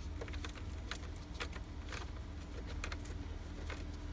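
Faint, irregular small clicks and taps of fingers turning a Torx screw out of plastic dash trim and handling the panel, over a low steady hum.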